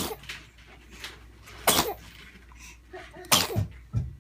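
A baby sneezing three times, each a short sharp burst, about a second and a half apart.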